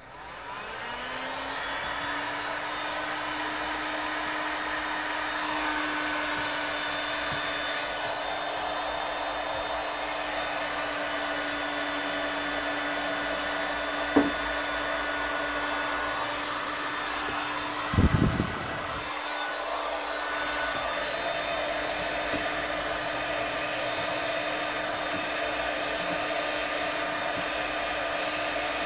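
Electric heat gun blowing hot air onto a motorcycle sprocket-carrier hub, heating it so it expands around the press-fit bearing. Its fan spins up over the first couple of seconds, then runs at a steady pitch. A sharp knock about halfway through and a brief cluster of louder knocks a few seconds later.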